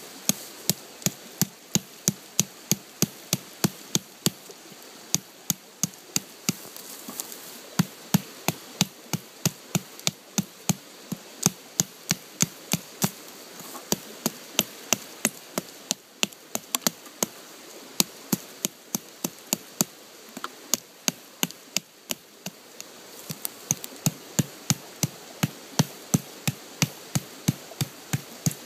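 Condor Bushlore bushcraft knife, a carbon-steel blade, chopping into the trunk of a small live tree: a steady run of sharp blade-on-wood chops, about two to three a second, with a few brief pauses.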